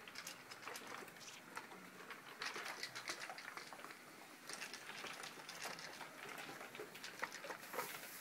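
Several dogs eating from stainless steel bowls on stands: a dense, irregular patter of chewing, licking and metal bowl clicks, busiest about two and a half seconds in and again through the second half.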